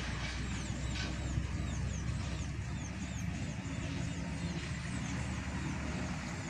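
Heavy truck's diesel engine running with a steady low rumble as it rolls slowly past, easing off after about three and a half seconds. Repeated short, high falling chirps sound over it.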